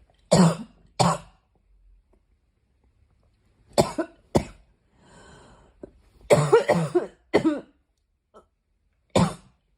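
A girl coughing in short, sharp bursts, sometimes singly or in pairs and once in a quick run of about four, with pauses between the fits.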